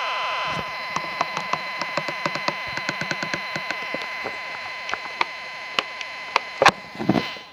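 Midland WR-120 weather radio giving out a steady electronic tone with a fast buzzing warble, broken by irregular clicks: a malfunction caused by its dead backup batteries. The tone drops in level about half a second in, and a louder click and thump come near the end as the sound fades.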